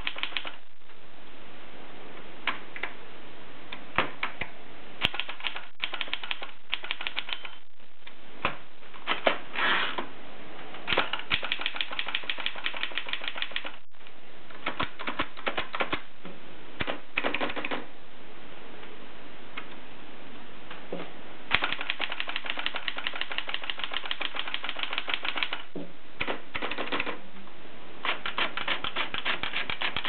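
Erika 5 manual portable typewriter being typed on: fast runs of key and typebar strikes against the platen, in bursts of a few seconds with short pauses between them.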